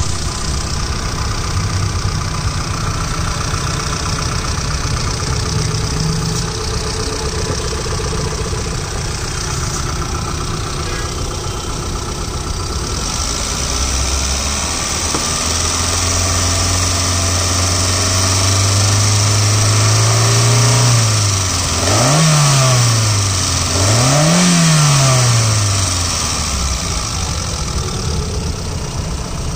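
Hyundai Santro Xing's four-cylinder petrol engine running, heard from the open engine bay. It idles steadily, about halfway through its speed rises and holds, then it is revved twice in quick succession and settles back to idle.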